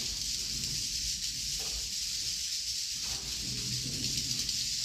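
Many swiftlets calling together inside a swiftlet house in the dark: a dense, steady, hiss-like chorus of high chirps and clicks. In darkness the birds all call, using the sound and its echoes to find their way.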